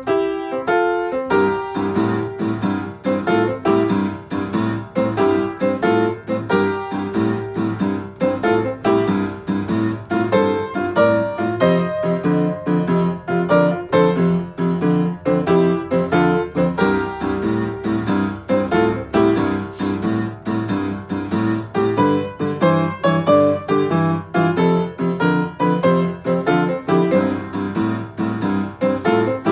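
Digital piano played with both hands: a blues-style piece with a steady, repeating low bass part under right-hand chords and figures, played without a break.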